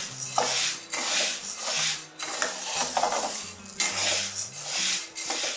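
A flat spatula stirring and scraping skinned urad dal (whole black gram) as it roasts in a nonstick pan. The hard grains rattle and swish against the pan in sweeps about once a second.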